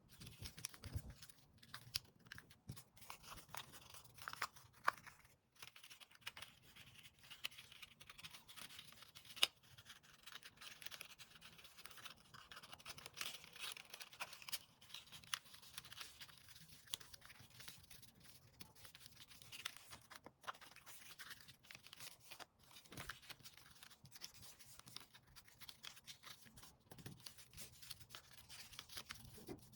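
Square sheets of paper being handled and folded by hand: a quiet, continuous rustle of paper with many small sharp creasing clicks, two of them louder.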